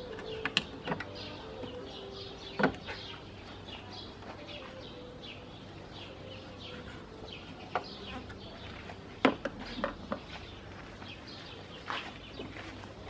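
Birds chirping in the background, with a handful of sharp clicks and knocks of a hand tool on metal parts as a car's drive belt is worked back into place. A faint steady hum fades out in the first few seconds.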